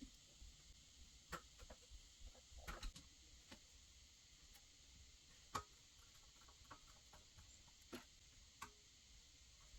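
Faint, irregular clicks and light taps of hands handling PC hardware, about ten in all, the sharpest about five and a half seconds in.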